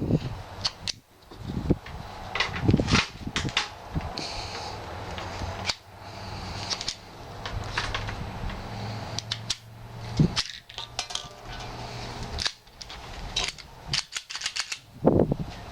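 Scattered metallic clicks and clacks of a Glock 42 .380 pistol being handled, its slide and magazine worked to clear a round that flat-point ammunition failed to feed or extract, over a low steady hum.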